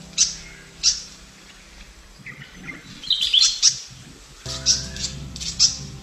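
Recorded song of a white-throated fantail: a string of short, high, sharp chirps with a quick jumble of squeaky notes about three seconds in.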